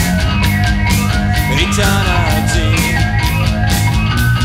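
Rock music from a band, with guitar, bass and drums playing to a steady beat.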